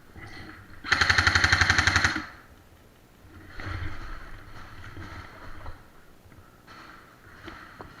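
Airsoft gun firing one full-auto burst of a little over a second, about fifteen shots a second. A quieter, longer rattle follows about a second and a half later.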